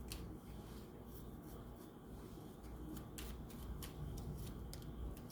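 Tarot cards being handled and shuffled, with irregular crisp snaps and flicks as cards are pulled and laid down, over a faint steady low hum.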